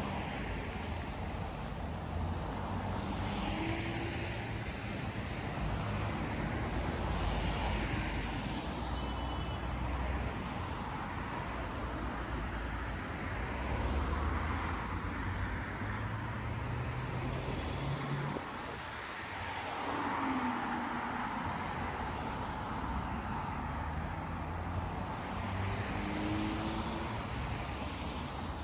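City street traffic: a steady hum of car engines and tyres, with vehicles passing close by and fading every few seconds.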